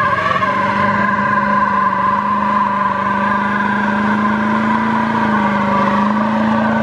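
Pickup truck engine running at a steady pitch, a constant drone with no revving.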